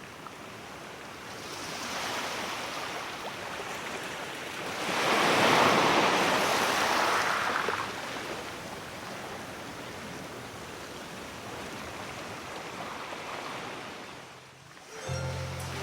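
Sea surf washing in, with one wave swelling and breaking at its loudest about five seconds in, then receding. Music starts just before the end.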